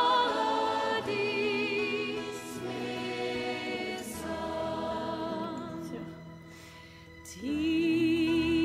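Background music of voices singing long held notes with vibrato, fading lower for a few seconds and swelling again near the end.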